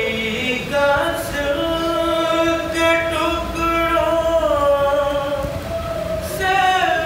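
A man singing an Urdu noha (Shia lament for the Prophet's family) unaccompanied, drawing out long notes that bend slowly in pitch.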